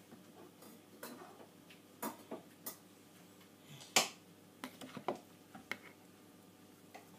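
Scattered light clicks and taps of a metal spoon knocking and scraping against peppers and a glass baking dish as stuffing is spooned in. The loudest knock comes about four seconds in, followed by a quick run of smaller taps.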